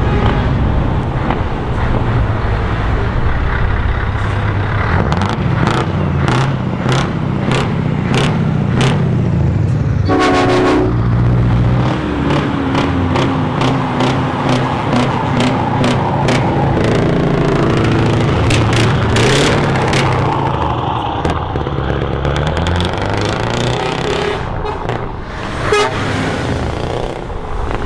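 Scania 164 V8 truck engine running very loud and being revved up and down over and over, with a short air-horn blast about ten seconds in.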